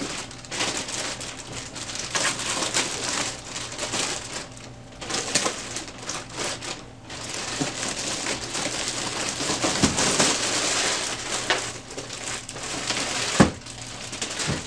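Plastic packaging wrap being pulled and crinkled off a new printer: an irregular crackling rustle with small clicks and a few knocks, the sharpest knock about thirteen seconds in.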